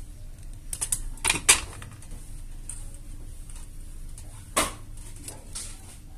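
Side cutters snipping and small parts clicking against a workbench: a few sharp clicks, the loudest pair about a second and a half in and another just past four and a half seconds, with lighter ticks between.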